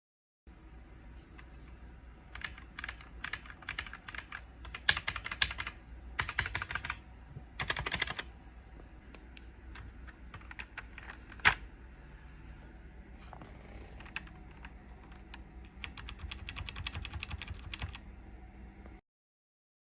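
Typing on a Ziyoulang T60 mechanical keyboard: runs of quick key clicks, densest around five and eight seconds in, with one single loud key strike around eleven seconds and a last run of typing near the end. A faint steady hum lies underneath.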